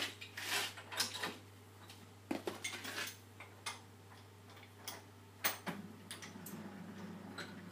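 Irregular metal clinks and knocks of steel parts and tools being handled on a milling machine's table, over a steady low hum.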